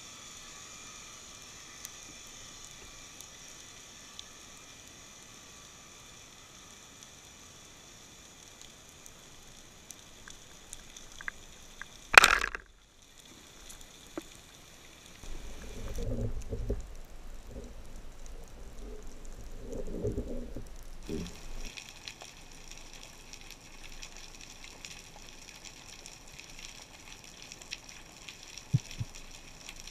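Band-powered speargun firing underwater: a single loud sharp snap about twelve seconds in, over a steady faint crackle of seabed background noise. A few seconds of low knocking and rumbling follow.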